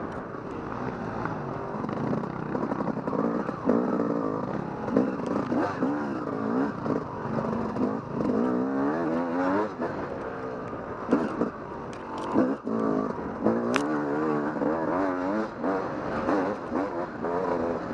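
Off-road dirt bike engine riding a rough trail, its pitch rising and falling over and over as the throttle is worked, with scattered knocks and clatter over bumps.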